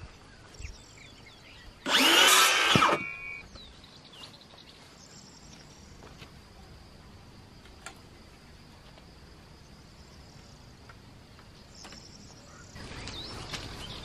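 A handheld power tool runs in one short burst of about a second, working on a wooden board. After it comes a faint, steady insect trill in the background.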